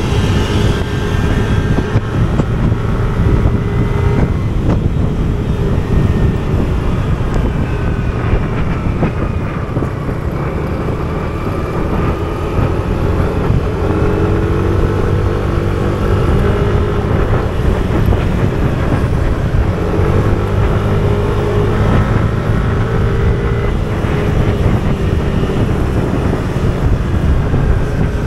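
Yamaha scooter's engine running as it is ridden along a road, a steady drone that dips about ten seconds in and rises in pitch as it accelerates about fourteen and twenty seconds in. Wind rushes over the microphone throughout.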